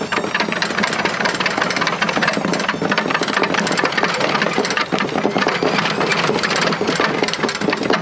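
Burning washing machine drum turning slowly on its motor, clattering and knocking rapidly and without a break over a steady low motor hum. The drum is chafing and coming loose as the machine is run to destruction.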